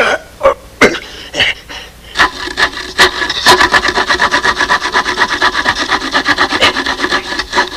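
Handsaw sawing through a wooden branch. A few separate strokes come first, then quick, even back-and-forth strokes from about two seconds in, several a second.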